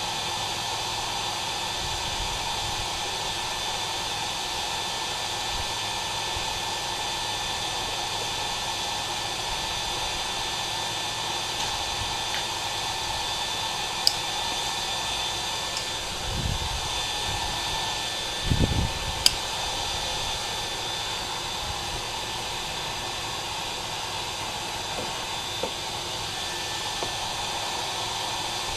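Forge running steadily with a constant blowing hiss and a faint high whine. A couple of dull knocks come about two-thirds of the way in.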